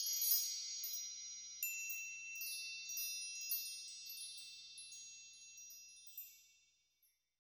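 Twinkling chime sound effect of the kind laid over a magic-wand sparkle: high, bell-like tinkles struck one after another, each ringing on, and the whole fading out about seven seconds in.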